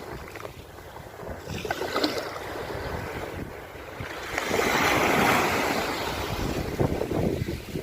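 Mediterranean sea waves washing onto the shore, one wave swelling loudest about halfway through, with wind rumbling on the microphone.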